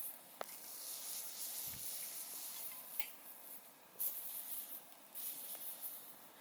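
Wood campfire burning with a steady hiss and occasional sharp crackles and pops.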